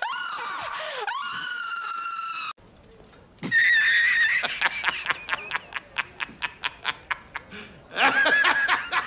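A woman screaming into a microphone, long high held screams that cut off suddenly about two and a half seconds in. After a second's pause a man laughs hard, a fast run of ha-ha pulses at about four a second, growing louder again near the end.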